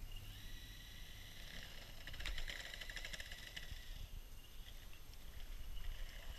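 Boosted electric skateboard rolling along a concrete sidewalk: a faint high motor whine comes in just after the start and fades about two-thirds of the way through, over a low wheel rumble, with a quick run of ticks about two seconds in.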